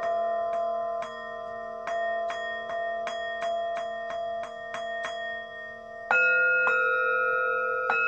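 Singing bowls ringing with several overlapping tones that hang on, renewed by a quick run of light strikes, about three a second, then a louder strike about six seconds in that adds a higher tone.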